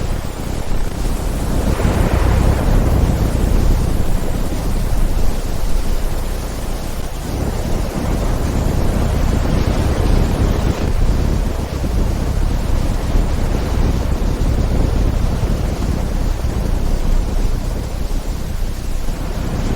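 Thunderstorm: thunder rumbling continuously, deep and loud, over a steady noisy wash, with a brighter swell about two seconds in.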